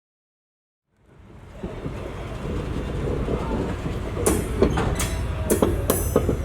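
Near silence for about a second, then a train's rolling sound fades in: a steady low rumble, with several sharp clacks of wheels over rail joints in the second half.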